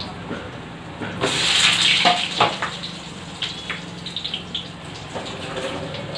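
A short rush of running water about a second in, lasting around a second, followed by a few light clinks of steel dishes over a steady low hum.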